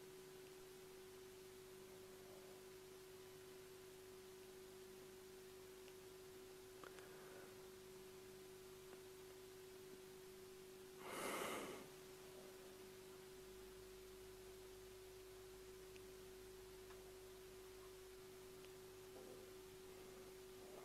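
Near silence: room tone with a steady faint hum, broken once about eleven seconds in by a person's short audible breath out.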